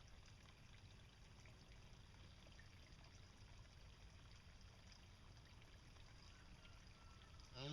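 Near silence: a faint steady hiss of room tone. A loud pitched sound cuts in right at the very end.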